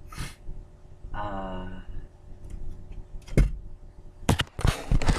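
Objects being handled inside a car: a single sharp knock about three and a half seconds in and a cluster of clicks and rattles near the end, with a short hummed voice about a second in.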